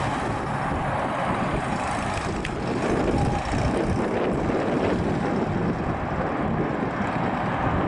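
Air-cooled flat-four engine of a 1969 Volkswagen Beetle driving away, heard as a steady rough noise with no clear pitch, mixed with wind buffeting the microphone.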